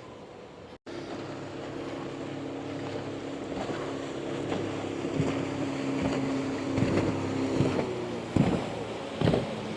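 Motorboat engine running steadily as a boat passes, with gusts of wind buffeting the microphone. The sound drops out briefly under a second in.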